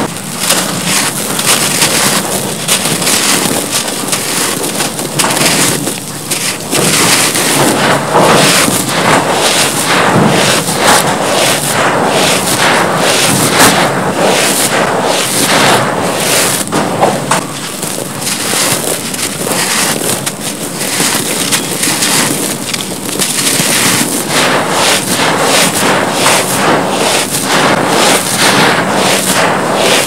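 Bare hands digging into, scooping and squeezing loose gritty cement powder and crumbled cement: a continuous dense crunching and rustling full of small crackles.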